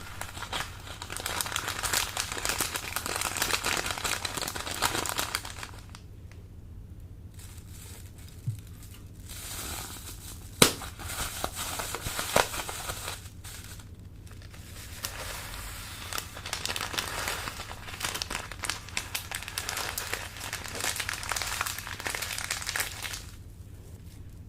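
Slime worked by hand, crackling and popping in three bouts separated by short pauses, with a couple of sharp snaps near the middle.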